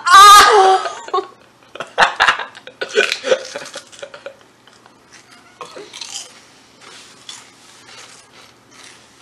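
A young woman's loud, wavering yell with her mouth wide open, followed by two teenagers laughing hard in bursts for a few seconds. The laughter dies down into quieter short clicks and small mouth noises.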